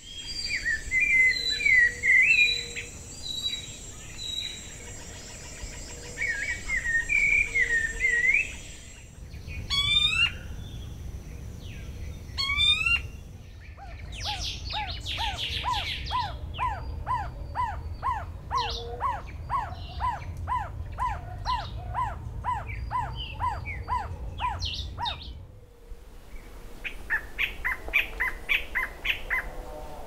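Birdsong in three parts. First a small songbird sings two short warbled phrases, followed by two quick rising sweeps. Then an Ecuadorian trogon sings a long, even series of notes, about two a second, with other birds calling faintly behind it, and near the end a jet antbird begins its song, a rapid series of notes.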